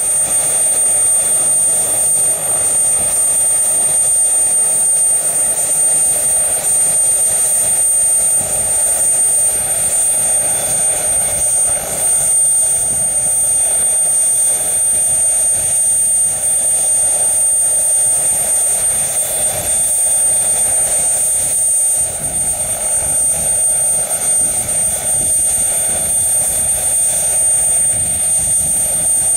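Fairchild-Hiller FH1100 helicopter's Allison 250 turboshaft engine running on the ground with main and tail rotors turning, a steady high-pitched turbine whine over the rotor and engine noise.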